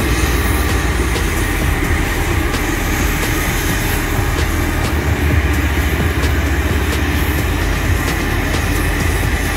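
JCB single-drum road roller running as it rolls slowly over loose dirt road base: a steady, loud, deep rumble of its diesel engine and drum, with faint scattered ticks.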